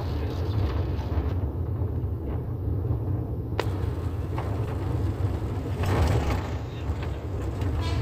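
Steady low rumble of a car's engine and tyres, heard from inside the cabin while driving, with a single sharp click about three and a half seconds in.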